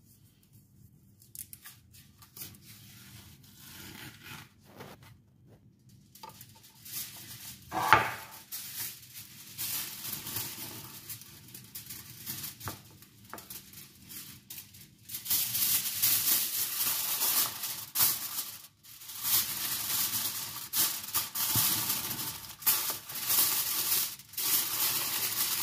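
Aluminium foil being torn and crinkled as it is pressed over a glass baking dish, a loud crackling that starts a little past halfway. Before it, quiet handling of potato slices and one sharp knock.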